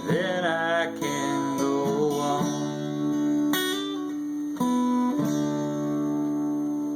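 Acoustic guitar strumming the song's final chords, each struck once and left to ring. A voice holds the last sung words over the first two seconds or so.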